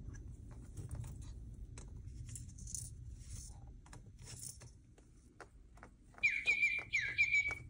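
Small clicks and rustling as a Moluccan cockatoo pokes its beak through wood-shaving bedding and at a plastic wind-up duck toy. About six seconds in, a louder, high chirping starts, with a few short falling notes, and runs to the end.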